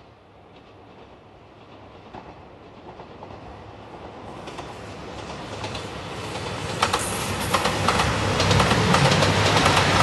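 JR Shikoku 2700 series diesel train approaching and passing close by, its rumble growing steadily louder, with the clickety-clack of wheels over rail joints from about seven seconds in.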